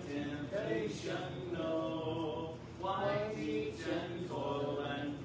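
A small congregation singing a hymn a cappella, with men's voices prominent. The voices hold notes and move in phrases, with short breaths between lines.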